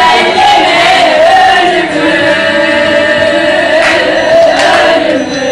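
Several voices singing a melody together, long held notes that waver in pitch. A few sharp knocks come near the end.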